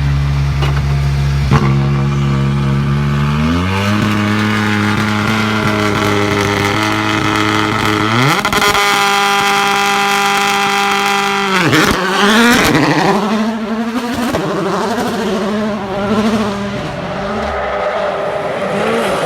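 A World Rally Car's turbocharged engine running hard. Its note holds steady and steps up in pitch about 3.5 s and 8.5 s in, then drops sharply as the car passes about 12 s in, and afterwards rises and falls as the driver works the throttle.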